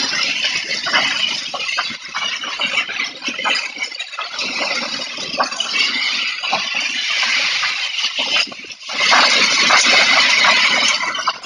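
Heavy rain and gusting wind in a storm: a dense, loud hiss with scattered small ticks and rattles, easing briefly about eight seconds in and then surging louder.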